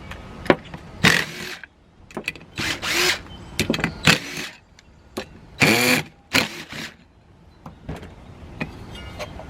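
Power driver running in about five short bursts, each spinning up and winding down, as the back-cap bolts are run out of a Nathan K5LA horn bell. A few small metallic clicks fall between the bursts.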